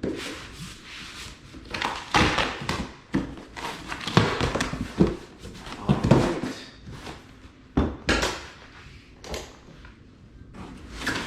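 Cardboard shipping box being handled and worked open: irregular scraping and rustling bursts, with a sharp knock about eight seconds in.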